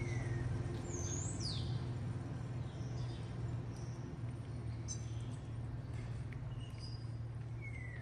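Scattered short bird chirps, some falling quickly in pitch, over a steady low outdoor hum.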